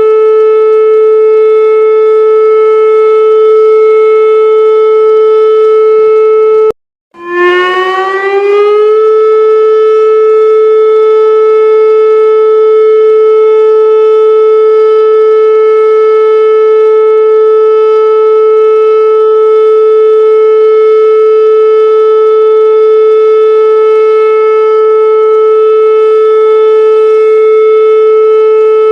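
Emergency warning siren sounding one loud steady tone. About seven seconds in it cuts out for a moment, then comes back rising in pitch over a couple of seconds before holding steady again.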